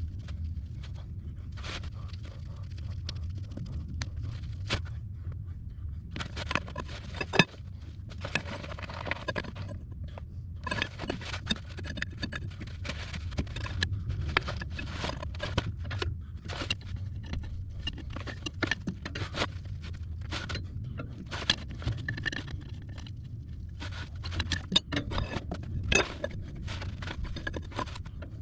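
Hand tools working a hydraulic hose fitting on a Cat 312 excavator: irregular clusters of metal clicks, clinks and scraping, over a steady low rumble.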